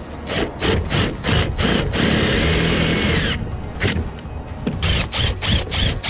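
DeWalt 20V Max impact driver sinking self-tapping screws through a steel mounting bracket into the bus's metal roof: short bursts of impacting, one sustained run of about a second and a half near the middle, then more short bursts.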